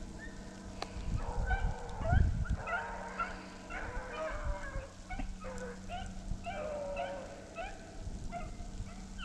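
A pack of rabbit hounds baying together, many short overlapping calls running on without a break: the sound of dogs giving tongue on a rabbit's trail. A low rumble comes in about two seconds in.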